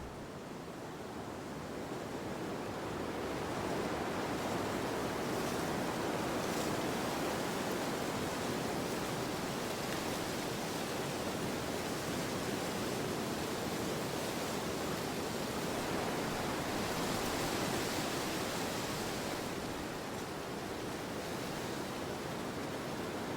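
Gusty wind blowing through trees, a steady rushing hiss that builds over the first few seconds and eases a little near the end.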